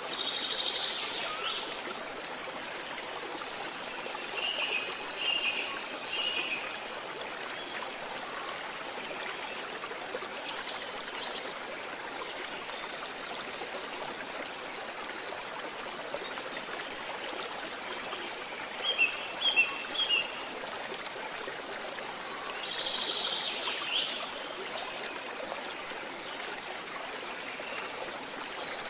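A stream running steadily over rocks, with short bird chirps now and then, including a quick cluster of them about two-thirds of the way through.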